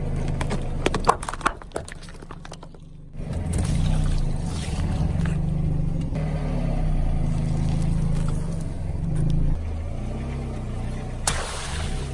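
A car crushing objects under its tyres: a rapid run of crackling crunches for the first three seconds, then the car's engine running with a steady low rumble, with one sharp knock near the end.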